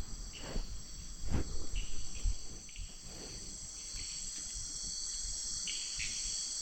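Steady high-pitched chorus of forest insects, cricket-like, with a few faint knocks.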